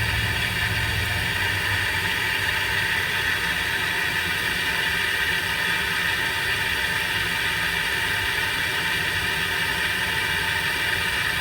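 Water running steadily through a garden hose while the hose timer's valve is open: an even hiss with a low rumble underneath.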